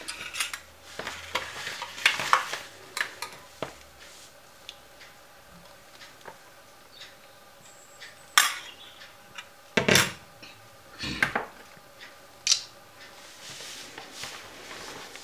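Scattered clinks and knocks of a spoon and steel bowls against a plate as food is served, with quiet gaps between. The loudest knocks come about eight to eleven seconds in.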